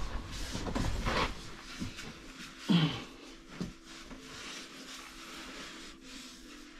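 Scuffing and shuffling of people moving over rock, with a short grunt about three seconds in; quieter after that.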